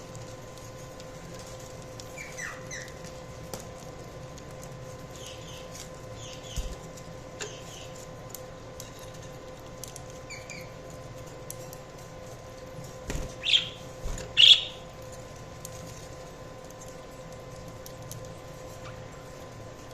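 Budgerigars giving short, scattered chirps, with two louder calls a little past the middle. Occasional light clicks and a faint steady hum underneath.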